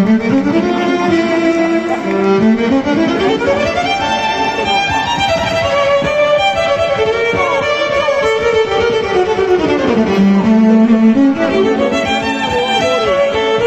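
Solo violin playing quick runs of notes, starting low, climbing for the first few seconds, dropping back to a low note about ten seconds in, then climbing again.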